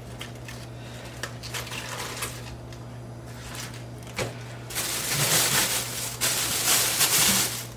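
Head of iceberg lettuce being handled and pulled apart: a few light clicks and a knock, then two long bursts of crisp rustling and crackling in the second half.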